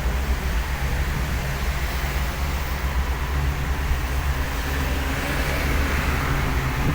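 Vehicle driving on a rain-wet road: a steady low engine and road rumble.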